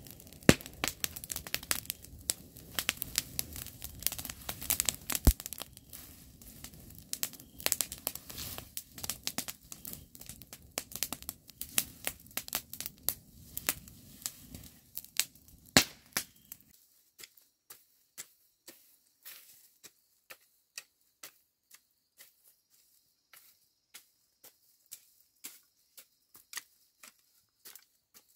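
Dense crackling and tearing noise made of many sharp clicks over a low rumble. About two thirds of the way in the rumble stops and only sparse single clicks remain.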